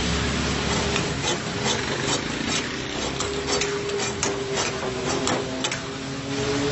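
Steel spatula clanking and scraping against a metal karahi as chicken karahi is stirred over a flame, a quick irregular run of clanks, several a second, from about a second in until near the end. Underneath, the steady hiss of the food sizzling.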